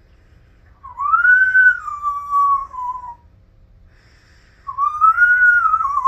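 African grey parrot whistling two long notes, each a little over two seconds. Each note rises briefly and then slides slowly down in pitch, with a pause of about a second and a half between them.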